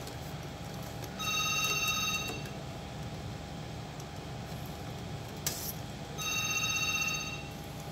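An electronic telephone ring sounding twice, each ring about a second long with about four seconds between them. A sharp click falls between the two rings.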